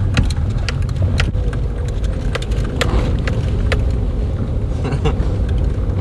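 Sedan driving, heard from inside the cabin: a steady low rumble with scattered clicks and knocks.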